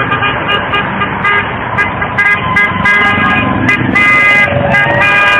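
Horns honking in many short, overlapping toots over steady street noise. A siren begins to rise near the end.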